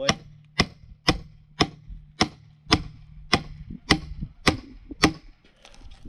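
Steady hammer blows on a froe, about ten sharp strikes roughly two a second, driving the blade into the tight heartwood of a log to split it. The strikes stop about five seconds in.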